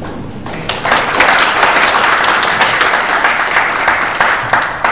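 Audience applauding, swelling within the first second and fading away near the end.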